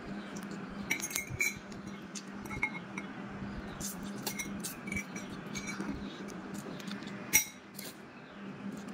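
Metal fork clinking and scraping against a ceramic plate as a child eats noodles: a scatter of short clinks, the loudest about seven seconds in, over a steady low hum.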